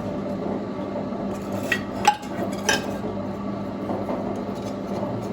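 Metal cookware clinking against metal three times, the second clink the loudest, over a steady low hum.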